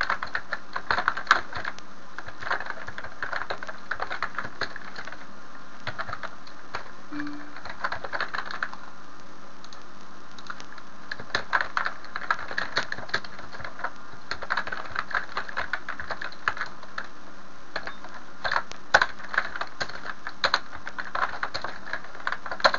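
Computer keyboard typing in runs of quick keystrokes, with a couple of short pauses, over a steady background hiss.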